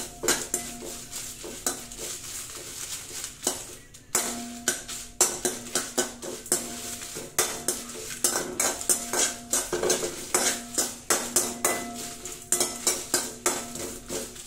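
A metal spoon scraping and clinking against an aluminium kadai in quick repeated strokes, stirring whole dried red chillies that are frying in a little oil, with a faint sizzle. The strokes pause briefly about four seconds in.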